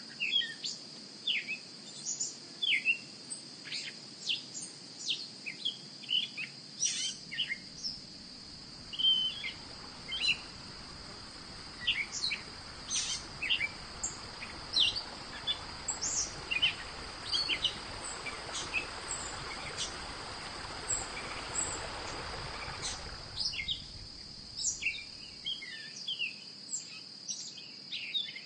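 Many birds chirping in quick short calls over a steady high-pitched insect drone. A low rushing noise swells up about a quarter of the way in and fades away before the end.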